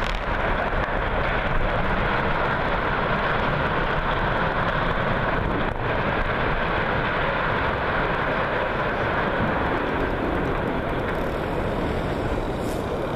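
Steel power-plant structure collapsing after demolition blasts: a continuous loud rumble of falling steel and debris that eases slightly near the end.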